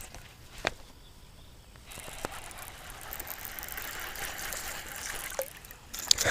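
A sharp click, then from about two seconds in a steady sound of trickling, splashing water.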